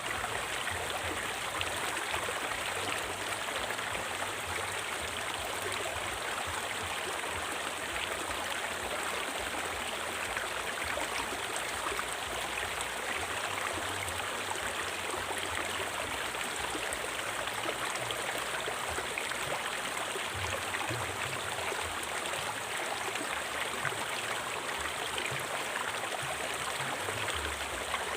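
River water flowing in a steady, continuous rush.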